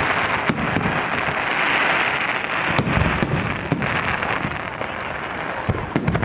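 Aerial fireworks bursting: a dense, continuous crackling with sharp bangs scattered through it, a cluster of them about three seconds in and another near the end, over low booming.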